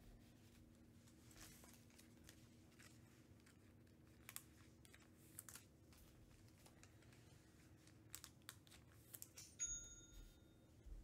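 Faint rustling, crinkling and small clicks of trading-card packaging being handled and torn open, heard as scattered light crackles. Near the end comes a brief high ringing tone lasting under a second.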